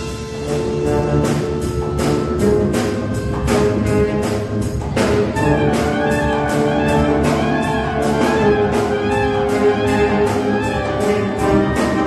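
A symphonic wind band playing live: clarinets and brass holding sustained chords over percussion that keeps a steady beat of about three strokes a second. About five seconds in, a strong accent lands and the band's sound fills out with more high parts.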